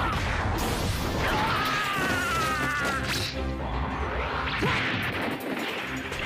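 Anime fight sound effects: heavy hits and crashes with whooshing sweeps and a low rumble, over background music.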